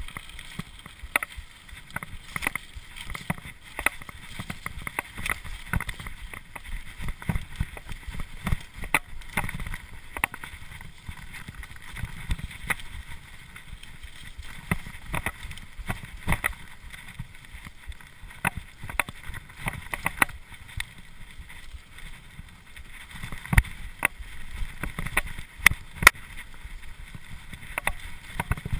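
Cube LTD Pro hardtail mountain bike descending a dirt singletrack: tyres rumbling over the trail with constant rattles and knocks from the bike, and two harder knocks late on.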